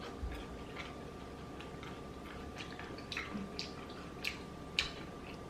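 Close-miked eating sounds: soft, wet mouth clicks and smacks from chewing spicy instant rice cakes and noodles. The clicks come irregularly, about a dozen of them, over a faint steady hum.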